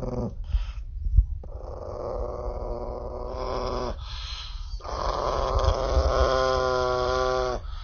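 Small Chihuahua-type dog growling in three long stretches, the last one turning clearer and more tonal before it stops near the end. It is guarding its food bowl.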